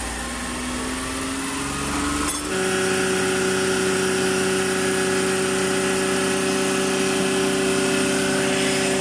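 Suzuki F6A three-cylinder multicab engine running, its pitch slowly rising over the first couple of seconds. After a click about two and a half seconds in, it holds a steady, higher-pitched hum.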